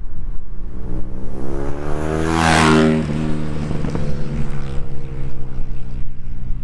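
2014 BMW R nineT boxer twin with a full Akrapovic exhaust riding past: the exhaust note rises as it approaches, is loudest about two and a half seconds in, then drops in pitch as the bike goes by and away.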